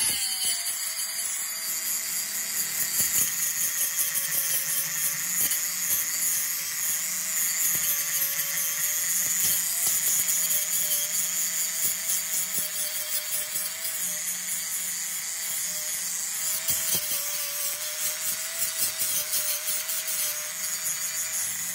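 Electric angle grinder running under load, its abrasive disc grinding the teeth of a large steel gear: a steady motor whine that sags and wavers slightly as the disc bites, over a harsh grinding hiss.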